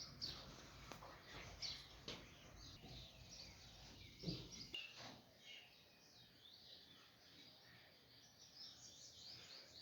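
Sparrows chirping faintly in short, scattered chirps, with a brief low thud about four seconds in.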